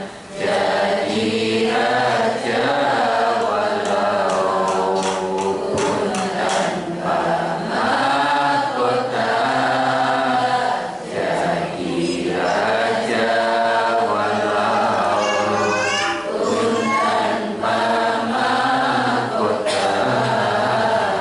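An unaccompanied Islamic devotional song (lagu Qur'ani) chanted by a man's voice, in long held notes that waver and slide, with short breaths between phrases.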